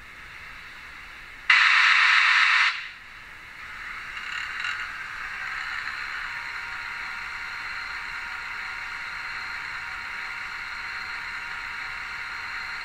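Sound decoder of a Roco H0 model DB class 86 steam locomotive playing its turbo-generator (Lichtmaschine) function through the model's small loudspeaker. About a second and a half in there is a loud hiss lasting about a second. From about three and a half seconds the generator sound runs on steadily as a hiss with a thin whine.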